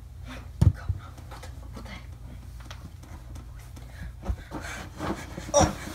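Bedding rustling and a few soft thumps and knocks as a person gets up off a bed and moves around in a small room, over a low steady hum.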